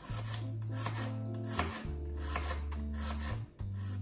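Kitchen knife slicing an onion into quarter rings on a wooden cutting board, repeated short cuts, over background music with a steady bass line.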